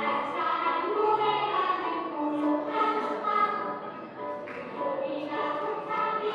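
Group of young children singing together with instrumental accompaniment.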